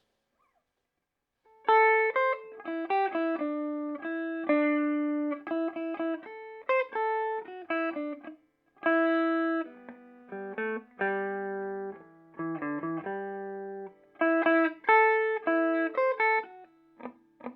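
Electric guitar played clean through a Peavey Bandit 112 TransTube combo amp and its 12-inch Blue Marvel speaker, clean channel in modern voicing, high-gain input. Picked single notes and chords come in short phrases with brief gaps, starting about a second and a half in.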